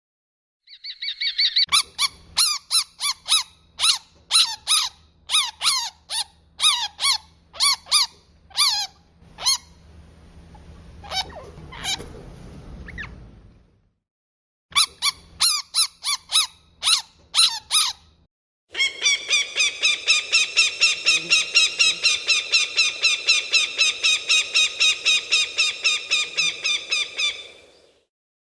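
A bird calling in runs of short, sharp calls, about two a second, with a rustling noise between the runs. Near the end comes one long, fast chattering run of calls that stops suddenly.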